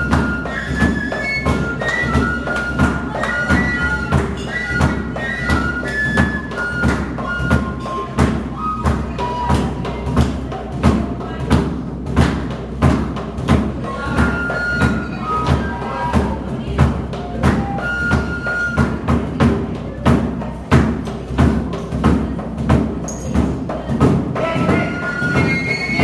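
Live folk music: a flute playing a melody over a steady, regular drum beat.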